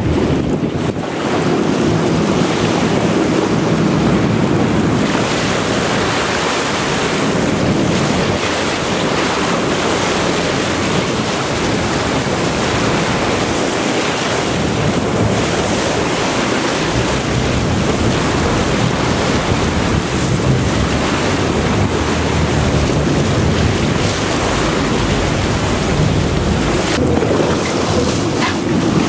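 Steady wind rush on the microphone over sea water washing, with the sportfishing boat's engine droning low beneath.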